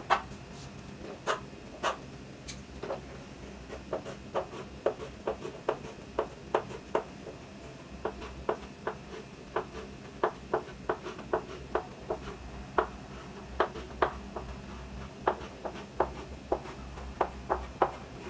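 Chalk tapping and scraping on a blackboard as block capital letters are written: a string of short, sharp, irregular taps, about two or three a second.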